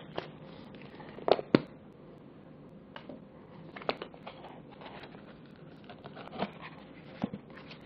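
A cardboard Apple Magic Trackpad retail box being handled and turned over: scattered taps and knocks of the box with light rustling between, the loudest a pair of sharp knocks about a second and a half in.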